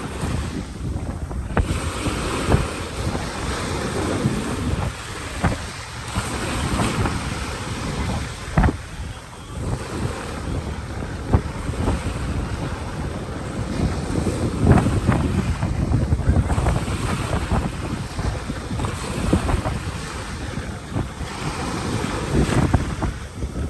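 Ocean waves breaking and washing up on a beach, swelling and easing every few seconds, with wind buffeting the microphone.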